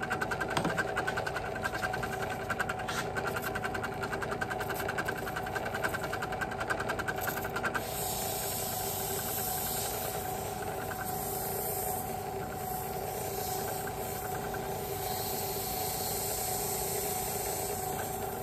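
Craftsman benchtop drill press running slowly with an engine valve spinning in its chuck, giving a steady motor hum. About eight seconds in the sound changes and a steady hiss joins it as a red abrasive pad wetted with WD-40 is pressed against the spinning valve head, scrubbing off carbon.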